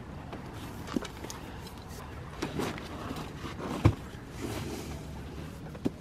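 Gear being loaded into an SUV's cargo area: a duffel bag and cardboard airbed boxes set down and shifted, giving a few short knocks and thumps, the loudest about four seconds in.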